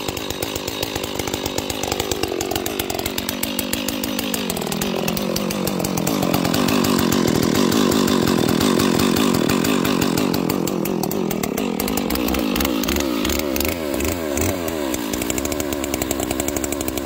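Stihl MS 461 chainsaw, a high-compression build, running steadily just after a cold start at about −25 °F; it is louder in the middle of the stretch.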